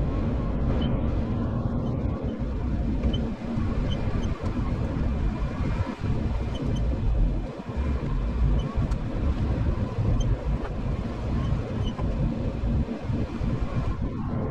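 Off-road vehicle driving on the trail: a steady, dense low rumble of engine and driving noise with no break.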